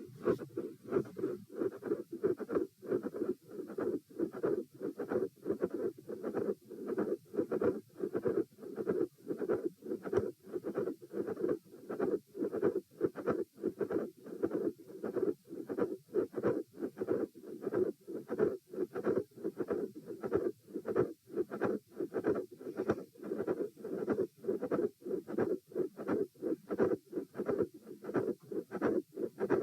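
Heartbeat heard through a stethoscope: a steady, regular run of paired lub-dub thumps. The uploader describes this heart as having a systolic click, a midsystolic murmur and a fixed split second heart sound.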